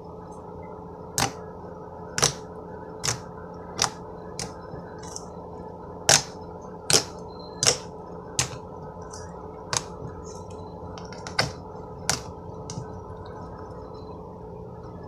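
Slime being pressed and worked by hand, giving a series of sharp clicky pops at irregular spacing, roughly one a second, that stop about twelve seconds in. A steady electrical hum runs underneath.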